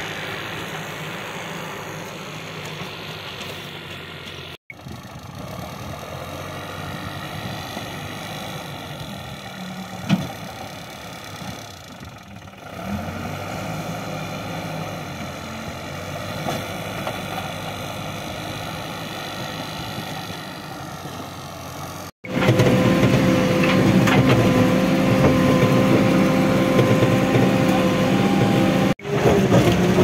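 JCB 3DX backhoe loader's diesel engine running while the machine pushes and levels soil. About 22 seconds in it becomes much louder and steadier, heard close up from the cab.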